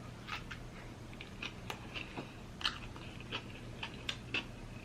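Someone chewing food, with soft, irregular mouth clicks.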